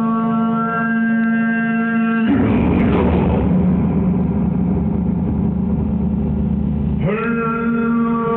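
Deep male voice holding a steady chanted drone note. About two seconds in it breaks into a rough, noisy growl for about five seconds, then the steady note returns, sliding up into pitch.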